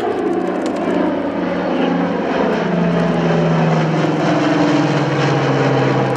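The four Curtiss-Wright R-3350 18-cylinder radial engines of a Lockheed Super Constellation running in a low flypast, the engine note falling steadily in pitch as the aircraft passes overhead.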